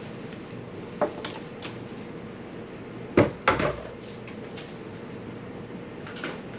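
A few sharp knocks and clunks over a steady background hum: one about a second in, a loud pair a little after three seconds, and a softer one near the end.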